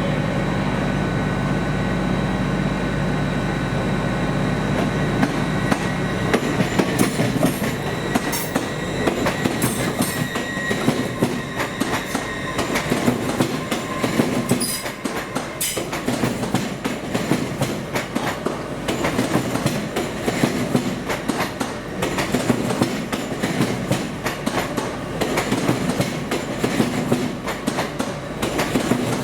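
A train moving through a station, with a steady low hum at first. From about six seconds in its wheels clatter rapidly over rail joints and points, with brief high-pitched wheel squeals.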